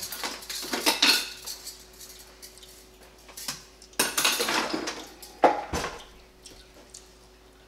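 Metal cutlery clattering as a kitchen utensil drawer is rummaged through, with clinks of dishes and a sharp knock about five and a half seconds in, the loudest sound.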